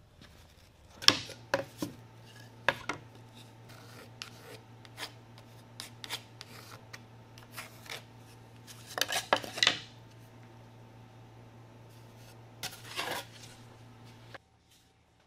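Hand work at a woodworking bench: thin wood veneer and paddle blanks handled and set down in sharp taps and clicks, with short scratchy rubbing as a pencil is drawn around a paddle template. A faint steady hum runs underneath and cuts off suddenly near the end.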